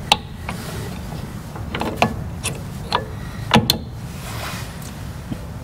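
Small metal clicks and clinks of brake pad retaining clips and pins being handled and pushed into a new disc brake caliper, a few sharp ticks spread out, over a low steady hum.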